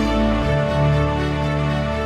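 Instrumental background music with sustained chords.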